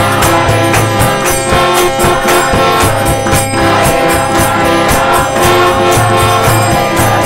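Kirtan music: jingling hand cymbals and drum keep a quick steady beat, about four strokes a second, over sustained held notes.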